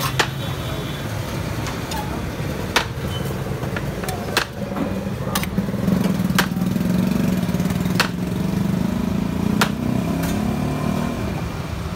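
A motor vehicle engine idling, a steady low hum that grows stronger about four and a half seconds in and eases near the end. About seven sharp knocks sound over it at uneven intervals.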